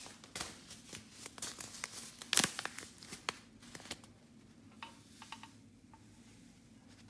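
Irregular sharp clicks and crinkling from hands handling things, busiest in the first half with the loudest click about two and a half seconds in, then thinning to a few scattered clicks.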